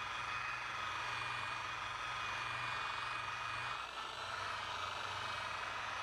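Electric rotary polisher running steadily, its soft black foam pad buffing fine polishing compound on latex-painted fabric, with a brief dip in level about four seconds in.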